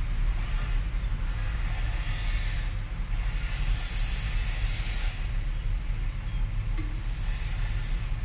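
Diesel engine of heavy earthmoving equipment running with a steady low rumble, with two spells of high hissing, one in the middle and one near the end.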